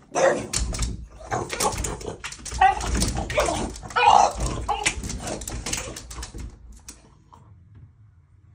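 French bulldog whining and barking excitedly, its paws scrabbling and tapping against a glass storm door. The noise fades out about six and a half seconds in.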